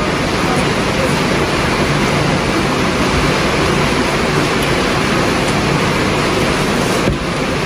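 Heavy rain pouring down, a loud steady rushing that all but drowns out other sound.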